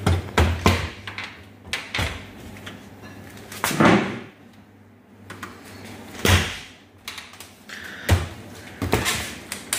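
Under-counter kitchen cabinet doors being swung open and shut, a series of knocks, clicks and brief rustles, the loudest about four and six seconds in.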